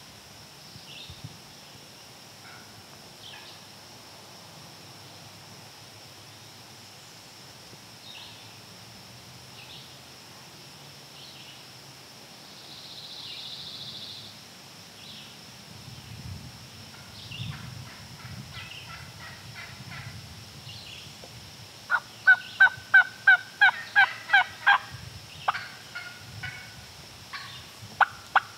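Turkey yelping: faint yelps in the middle, then a loud run of about ten yelps at about three a second late on, and two sharp notes near the end. Small songbirds chirp faintly throughout.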